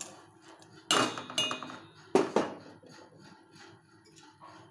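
Stainless-steel cooking pot clinking: about four sharp knocks with brief metallic ringing, as a container or spoon strikes the pot while powder is tipped into the milk.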